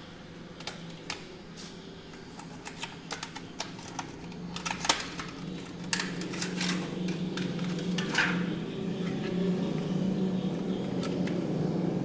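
Light clicks and knocks of a 2.5-inch laptop hard drive and its drive bracket being handled and set down in an open laptop chassis, irregular, thickest and loudest in the middle. A low steady hum grows louder from about four seconds in.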